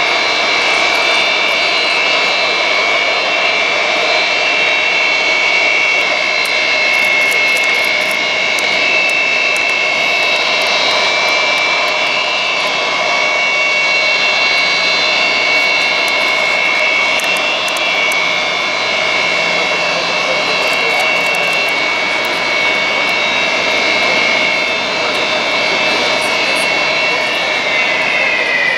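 Antonov An-225 Mriya's Progress D-18T turbofan engines running on the ground: a loud, steady roar with a high whine over it. Near the end the whine starts to fall in pitch as the engines wind down.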